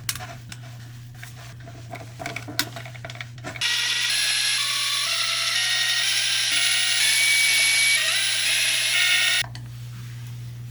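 Light metal clinks and taps of tools and parts being handled, then a loud, bright electronic tune of stepped tones lasting about six seconds that cuts off suddenly.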